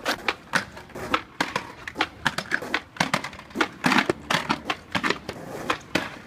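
A rapid, irregular run of sharp clicks and taps.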